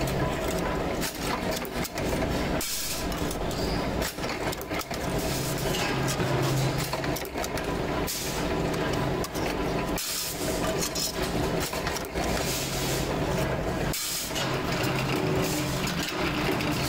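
Workshop power press running with a steady motor hum, with frequent clanks and clinks of steel parts being handled in the die.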